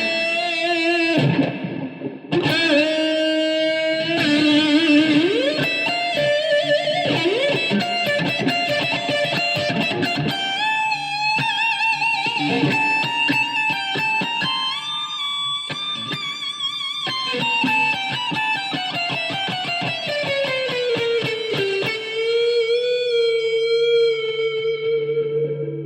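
Electric guitar playing a fast improvised solo with quick runs of notes, then one long sustained note that slides slowly down in pitch and is held with vibrato near the end.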